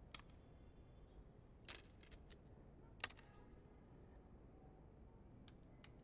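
A few clicks of a portable CD player being worked by hand, its lid and buttons, over near silence: a small cluster about two seconds in, the sharpest click about three seconds in, and two light clicks near the end.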